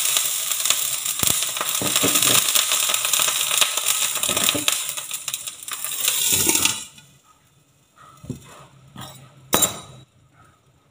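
Water poured into a hot non-stick frying pan beside a souffle pancake, hissing and sizzling loudly as it turns to steam to cook the pancake through. The sizzle dies down about seven seconds in as a glass lid goes on the pan, followed by a few sharp clinks.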